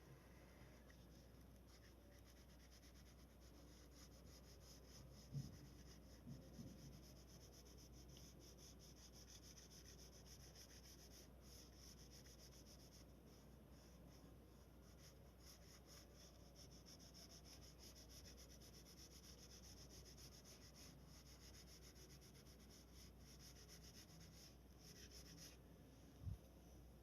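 Near silence with faint rubbing of drawing strokes on paper, which stop shortly before the end. There are two soft knocks, about five seconds in and near the end.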